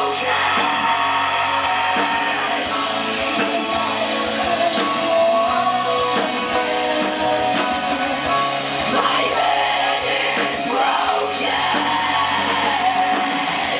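A live rock band playing, with guitar, a steady beat and a voice singing over it.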